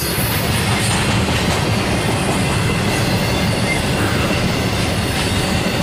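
Intermodal freight cars loaded with containers and trailers rolling steadily past on the track, a continuous rumble of steel wheels on rail.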